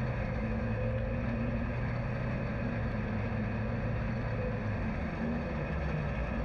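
Lightning Sprint race car engine running steadily at low, even revs, heard through the onboard camera.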